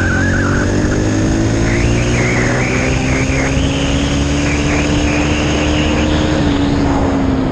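Dirt bike engine running steadily, its pitch slowly rising through the middle and easing off near the end, over a loud low rumble, with a wavering higher whine on top.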